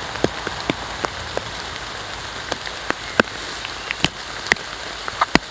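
Rain falling steadily, with heavy drops landing close by as sharp, irregular ticks.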